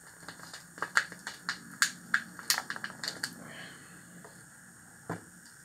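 Hot glue gun and small plastic parts handled on a workbench: a quick run of sharp clicks and crackles lasting about three seconds, then one more click near the end.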